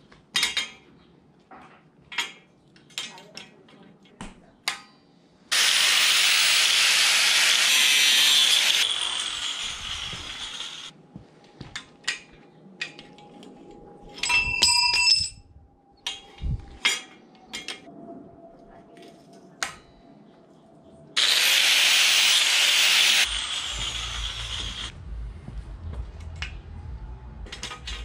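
Arc welding on two small steel plates, heard twice: each a few seconds of loud, steady hiss that starts abruptly, the first about five seconds in and the second about twenty-one seconds in. Between them come scattered clicks and clinks of the steel plates and a locking clamp being handled, with one ringing metal clink near the middle.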